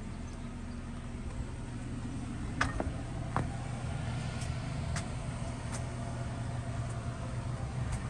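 A steady low mechanical hum, with a few light clicks and taps between about two and a half and six seconds in.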